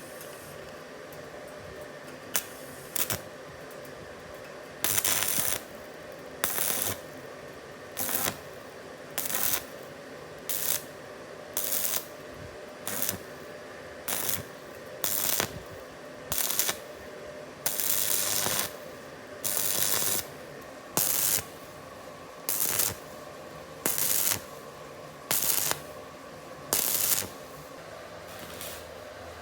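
Compressed-air spray gun firing in short hissing bursts, about one every second and a half, over a steady low hum.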